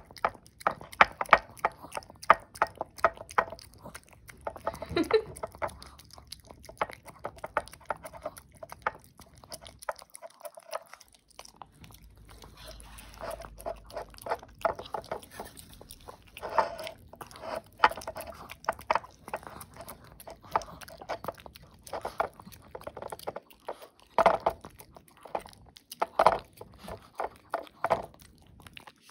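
Pomeranian lapping and licking soft puree from a small ceramic bowl: a fast run of wet licks and mouth clicks, broken by two short pauses.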